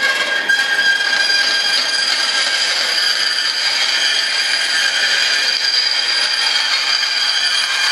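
Band saw running and cutting through a fiberglass sheet: a steady high whine with a rasping hiss.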